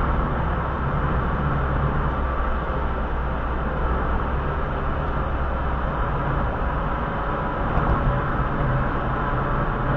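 Steady road and tyre noise with a low engine hum, heard from inside a car cruising at about 38 to 39 mph.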